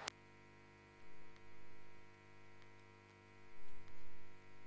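Faint steady electrical mains hum and buzz on the audio line, with a click right at the start and a few soft low bumps.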